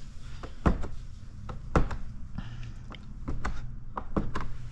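Squeegee working paint protection film down onto bumper trim: a series of irregular short taps and clicks as it is pushed up in short strokes and lifted off, over a steady low hum.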